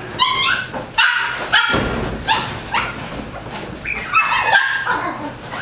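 Several Japanese Chin dogs barking and yipping in short, high calls one after another, excited by their owner coming in the door.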